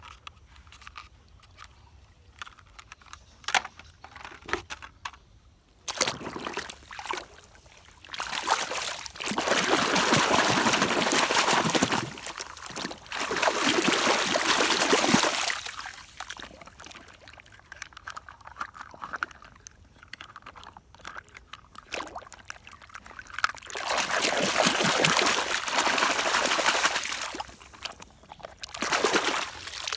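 Water running and pouring over a muddy toy vehicle as it is rinsed clean, in spells of a few seconds, with light clicks and knocks of the toy being handled in the first few seconds.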